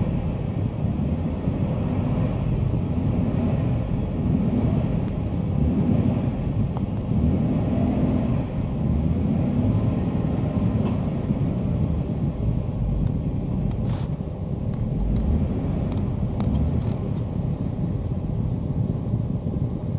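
Vehicle engine running at low speed, a steady low rumble, as the vehicle slowly reverses to strip a hanging deer's hide with a strap. A few sharp clicks in the second half.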